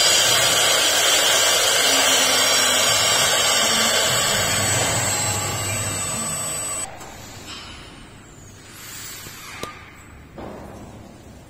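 CNC router spindle running with a steady high whine while its bit engraves an MDF sheet. The sound cuts off sharply about seven seconds in, leaving much quieter background noise with a couple of faint clicks.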